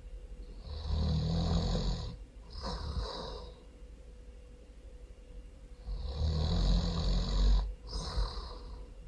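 A person snoring loudly. There are two snores about five seconds apart, each a long snore followed after a brief break by a shorter one.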